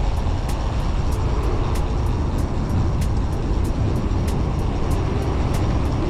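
Wind rushing and buffeting over the microphone of a camera mounted on a moving road bike, with a faint regular ticking, about three or four ticks a second.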